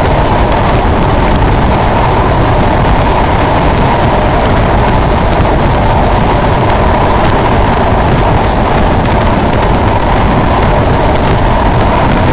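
Passenger train running at speed on an elevated viaduct, heard from out of the coach window: a steady, loud rush of running noise and air, with the wind buffeting the microphone.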